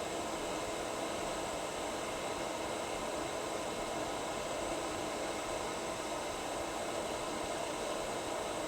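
Steady hiss of a small electric fan running, with a faint steady hum in it and no change throughout.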